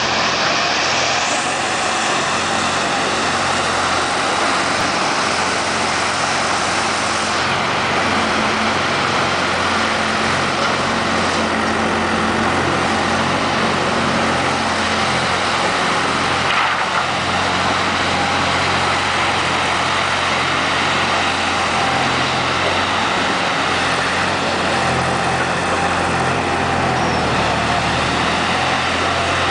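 Engine of a wheeled hydraulic log loader running steadily while its grapple boom lifts and swings logs, its speed shifting a little now and then.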